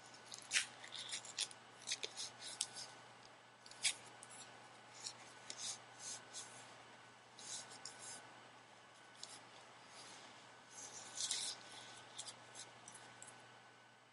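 Quiet, short scratchy rubs and rustles of batting gloves being handled and pulled on, several in quick succession in the first few seconds, sparser after, with a longer scratch about eleven seconds in.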